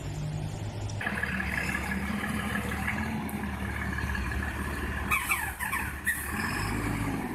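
Heavy truck's diesel engine running at a low, steady speed, with a short burst of high squeaks about five seconds in.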